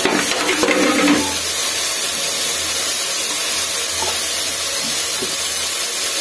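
Fried onions and tomatoes sizzling steadily in a pressure-cooker pot with soaked horse gram just added, with a few light knocks in the first second.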